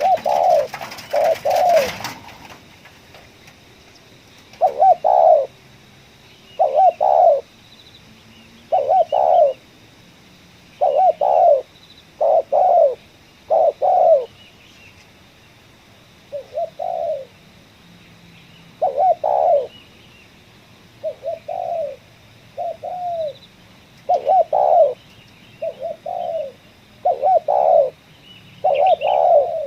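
Spotted dove cooing: short, mellow coo phrases repeated about every one to two seconds. A rustling noise sounds over the first two seconds.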